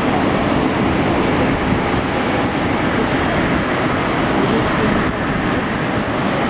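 Boeing 777's twin jet engines running at low taxi power as the airliner rolls slowly past, a steady, even roar.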